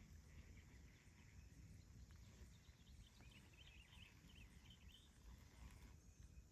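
Near silence: faint outdoor ambience with a low rumble and a few faint high chirps in the middle.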